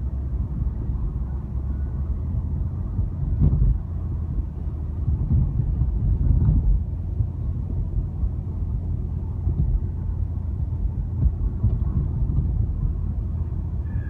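Car driving, heard from inside the cabin: a steady low rumble of engine and tyres on the road, with two brief louder bumps, about three and a half and six and a half seconds in.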